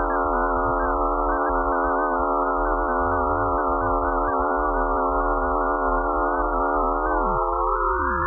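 Eerie electronic space sound presented as a sonification of Pluto's magnetic field and radio waves: a dense cluster of steady, slightly wavering tones, with a few sliding down in pitch near the end as higher tones rise in.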